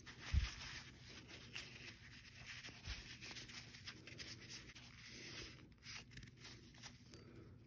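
Faint rustling and rubbing of a paper towel wiping down an AR-15 bolt carrier group, with small scratchy ticks of handling and a soft knock about half a second in.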